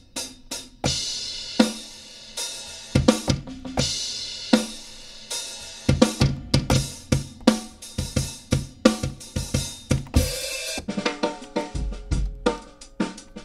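Sampled boom bap drum breaks (kick, snare, hi-hat and cymbal) played from an MPC Renaissance, switching to a different break several times, the last one with heavier bass.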